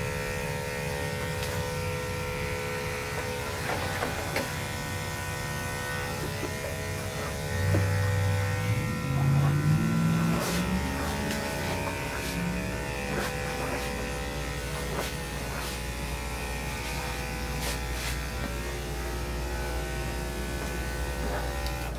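Corded electric dog-grooming clippers running steadily, a motor hum with a high whine, as they shave through a puppy's matted coat. A louder low sound comes in for a couple of seconds midway.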